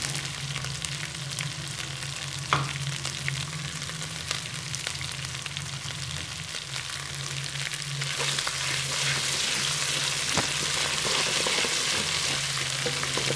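Whole cumin seeds and ginger-garlic paste sizzling and crackling in hot cooking oil in a karahi, stirred with a wooden spatula. The sizzle grows louder about eight seconds in.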